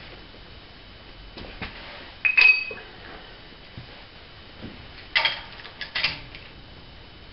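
Metal parts and tools clinking together: a loud ringing clink a little over two seconds in, and a quick cluster of clinks around five to six seconds in.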